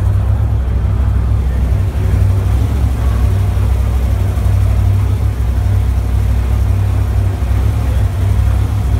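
Arrinera Hussarya race car's mid-mounted V8 engine running at a steady idle while still cold, low and deep.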